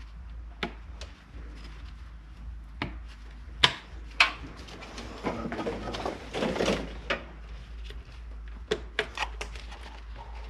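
Plastic clicks and knocks of headlight wiring connectors being unplugged and the headlight assembly being handled, with a stretch of rustling and scraping in the middle and a quick run of clicks near the end.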